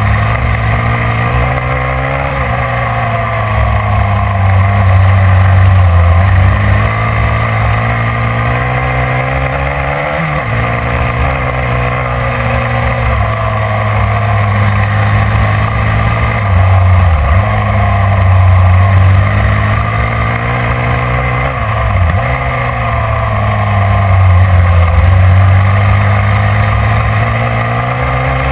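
Racing vehicle's engine running hard at speed. Its pitch dips briefly and climbs back several times as the throttle is eased and reopened through the corners, with wind buffeting the microphone.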